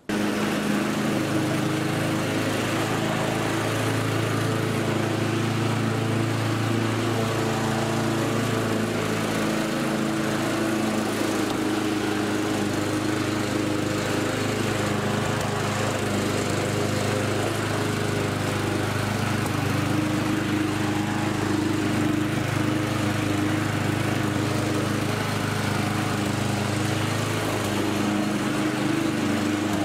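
Petrol walk-behind rotary lawnmower engine running steadily, its pitch dipping slightly now and then.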